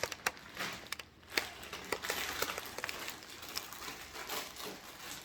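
Packaging crinkling and rustling as it is handled, with scattered small clicks and taps.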